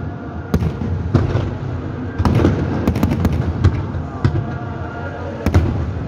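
Aerial fireworks bursting: about a dozen sharp bangs and cracks at irregular intervals, bunched together in the middle and with one of the loudest near the end, over a steady low rumble.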